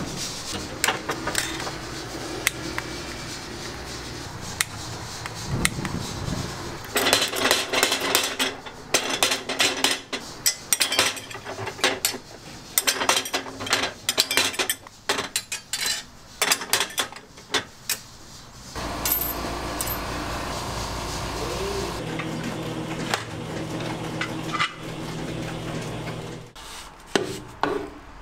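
Metal clinking, knocking and scraping as a steel rod works on cast-iron fish-shaped bungeoppang molds: a dense run of quick knocks for about ten seconds in the middle. It is followed by a steady low hum lasting several seconds.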